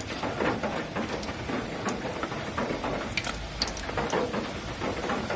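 Sliced bananas deep-frying in hot oil in a wok: a steady sizzle full of small crackling pops.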